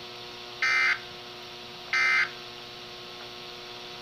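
Two short, buzzy bursts of SAME digital alert data, each about a third of a second long and a second and a half apart, over a steady radio hum: the end-of-message code of a weather-radio emergency alert.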